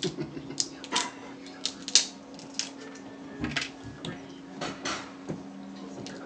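Cooked seafood shells being cracked and peeled by hand: irregular sharp clicks and crackles, several a second at times, over a steady low hum.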